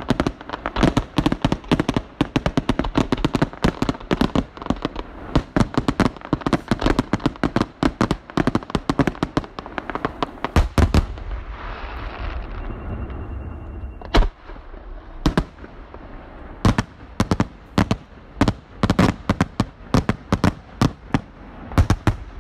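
Aerial fireworks display: a dense rapid barrage of shell bursts for about the first ten seconds, then a few seconds of softer noise without bangs, then single loud bursts resuming, a half second to a second apart.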